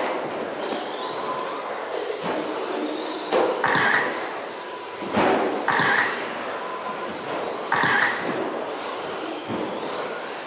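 Radio-controlled stadium and short-course trucks racing on an indoor turf track: a steady haze of motor whine and tyre noise with faint rising and falling whines, broken by louder knocks and clatters about every two seconds as trucks land and hit the track.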